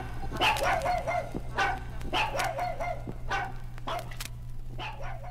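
Dog barking in short repeated bursts, growing quieter as the track fades out, over a low steady hum.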